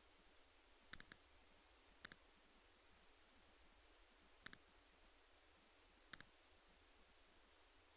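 Sharp, quick clicks in small groups over a faint hiss: three about a second in, then pairs of clicks near two, four and a half and six seconds.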